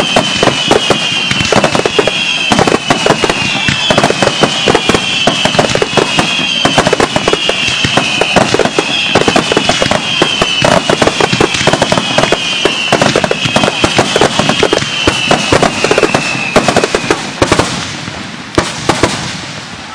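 Fireworks barrage: a dense, rapid run of aerial shell bursts and crackling bangs. Over it, a high whistling tone falls slightly and repeats about once a second. Near the end the barrage thins to a few last bangs.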